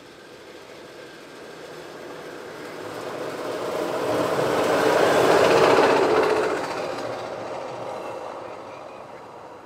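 Chevrolet hi-rail utility pickup running along the railroad track on its rail guide wheels and passing by: a rumbling hiss of wheels on steel rail that swells to its loudest a little past halfway, then fades away.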